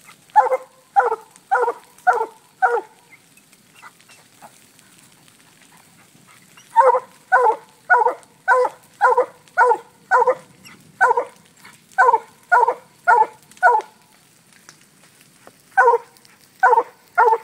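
Black and tan coonhound treeing a raccoon, barking in runs of short, evenly spaced barks about two a second, broken twice by pauses of a few seconds.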